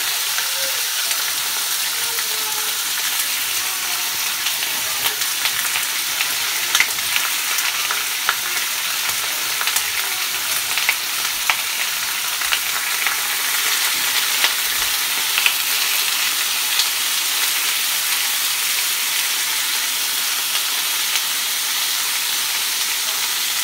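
Chicken pieces frying in hot oil in a skillet: a steady sizzle with scattered crackles and pops. A spatula stirs the pan near the end.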